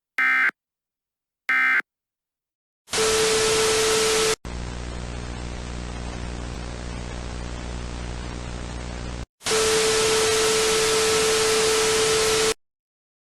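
Two short Emergency Alert System end-of-message data bursts, warbling digital chirps, about a second and a half apart. Then loud static hiss with a steady tone through it, which drops to quieter static with a low buzz for about five seconds. It returns to the loud hiss with the tone and cuts off suddenly near the end.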